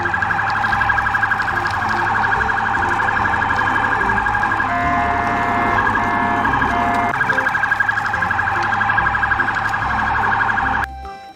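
Electronic police siren from a toy police car, a fast warble, with a few short steady beeps mixed in midway. It cuts off shortly before the end.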